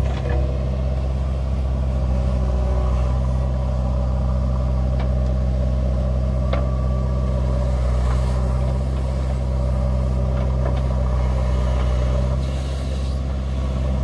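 Diesel engine of a JCB 3DX backhoe loader running steadily while it digs and swings soil, with a few sharp knocks scattered through.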